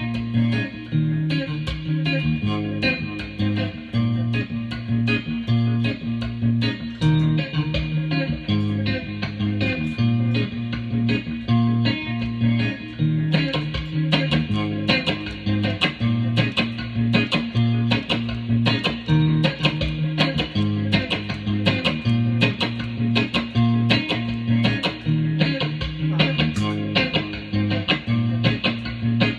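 Guitar music from a demo recording: plucked guitar over a repeating bass line.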